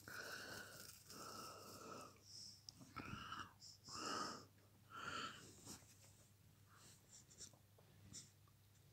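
Faint breathy sounds from a person, about six short puffs like whispered breaths in the first five or so seconds, then near quiet with a few small ticks.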